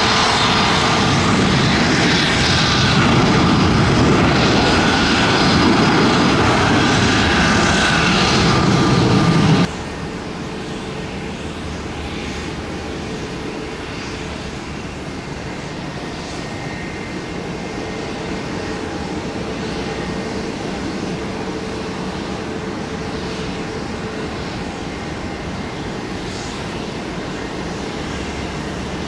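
Airbus A320's twin jet engines at takeoff power as the airliner lifts off, a loud, dense roar that breaks off suddenly about ten seconds in. It gives way to quieter, steady jet noise from an Embraer Praetor 500 business jet touching down and rolling out.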